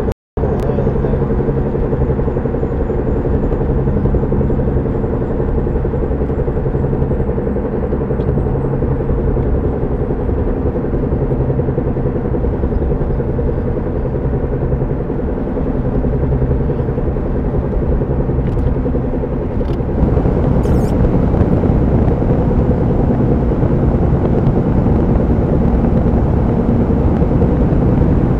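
Car driving with a steady droning hum from the driver-side front wheel area, which gets louder with speed and does not change under braking or turning. It grows louder about twenty seconds in. The owner can't tell whether a bad tire or a drivetrain fault is the cause.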